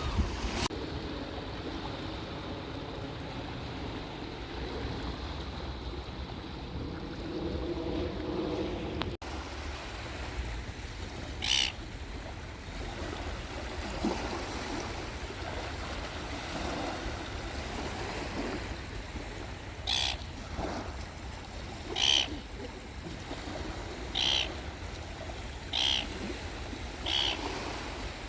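Seaside ambience: a steady low wash of surf and wind. After a short break about nine seconds in, a bird gives short, sharp calls, about seven times in all, and these calls are the loudest sounds.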